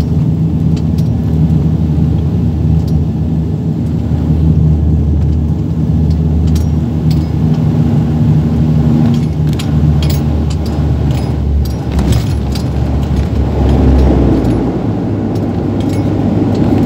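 Cabin noise in a de Havilland Canada Dash 8 turboprop on landing: a steady low propeller and engine drone with many small rattles in the cabin. In the second half the drone gives way to a louder, broader rushing as the main wheels touch down and roll along the runway.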